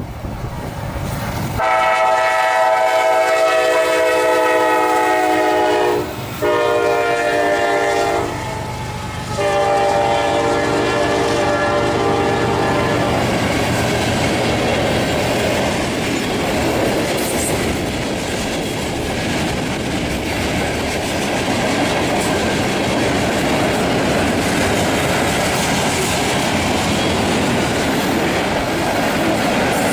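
Locomotive air horn sounding a chord in three blasts, a long one, a shorter one, then another long one. The train then passes with a steady rumble and clickety-clack of wheels on rail joints.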